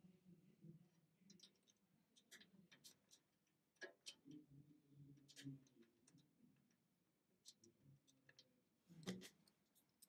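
Faint, irregular small clicks and taps of an SSD and its mounting hardware being handled and fitted into a metal PC cabinet, with a couple of sharper knocks about four seconds in and near the end.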